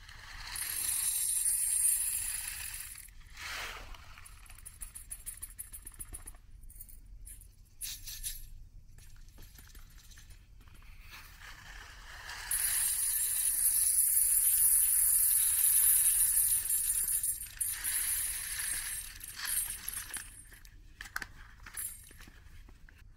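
Tiny dry water-expanding beads (Orbeez) pouring from a plastic zip bag into a stainless steel funnel: a fine, high rattle of beads pattering on the metal. It comes in two long pours, with scattered clicks of a few stray beads in between and near the end.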